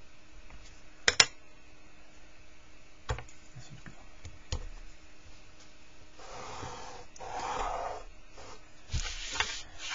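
Drawing tools handled on paper: a sharp click about a second in, the loudest sound, then a few lighter knocks, as a pencil is put down and a blue marker taken up beside a plastic set square. Later comes a few seconds of scratchy rubbing as the marker is drawn along the set square's edge, then more small clicks near the end.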